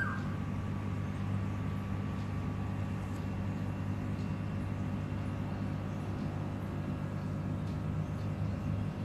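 A steady low mechanical hum that stays even throughout.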